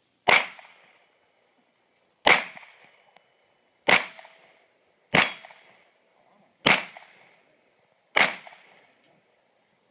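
Six gunshots, fired singly and evenly paced about one and a half seconds apart, each trailing off in a short echo.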